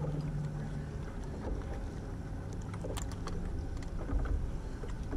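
Wind and choppy water around a small Gheenoe skiff, with a few faint clicks and knocks about midway.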